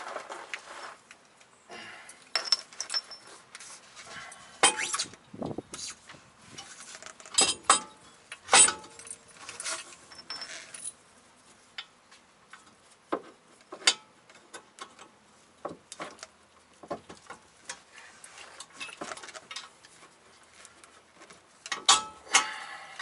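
Scattered metallic clinks and knocks of hand work on a VW Mk2 rear axle beam, as a shock bolt and nut are fitted through the mount by hand.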